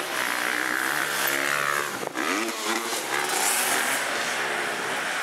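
Motocross bike engine revving hard on the track, rising and falling in pitch with throttle and gear changes. The throttle cuts briefly about two seconds in, then the engine climbs again.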